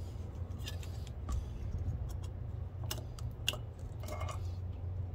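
Several short, sharp metal clicks from a LockNlube grease coupler on a grease gun hose as it is handled and brought to a grease zerk, over a low steady hum.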